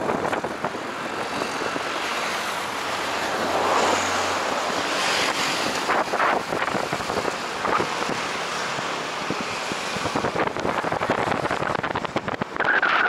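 Road traffic passing along a busy city road, with wind noise on the microphone.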